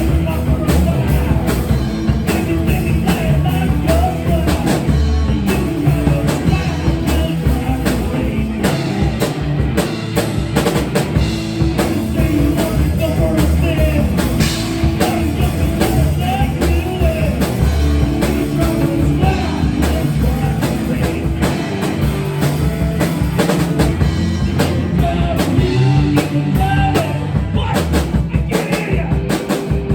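Rock music: a drum kit and other instruments playing a steady beat.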